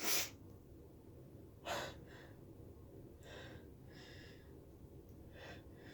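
A woman with a head cold breathing and sniffing through a stuffy nose between sneezes. There is a short sharp breath at the start, a louder sniff a little under two seconds in, then faint uneven breaths.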